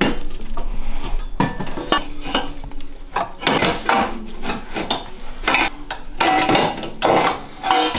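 Metal exhaust header clanking and scraping against the engine and chassis as it is worked into and out of position, with irregular knocks throughout.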